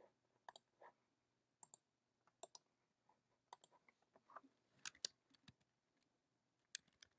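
Faint, scattered clicks of a computer mouse, some single and several in quick pairs like double-clicks.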